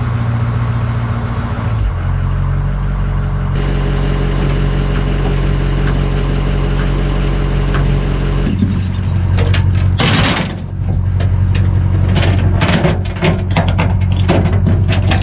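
Pickup truck engine idling steadily while a gooseneck trailer is hitched to it. From about nine seconds in, quick metallic clanks and rattles of the hitch and safety chains being hooked up.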